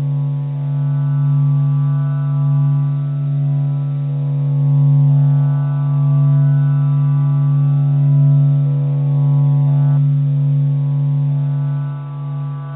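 A steady, low droning tone with a rich stack of overtones, gently swelling and easing in loudness, offered as the 'sound of the sun' for meditation.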